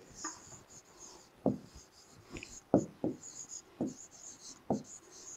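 Handwriting on the glass of an interactive touchscreen board: faint scratchy strokes with a soft tap about once a second as each stroke lands.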